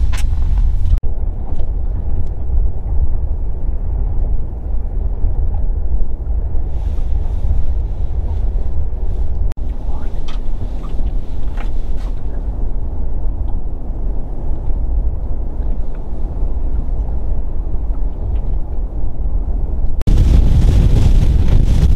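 Steady low rumble of wind buffeting the microphone over open water, with a few faint clicks partway through. About 20 seconds in it turns abruptly louder and hissier.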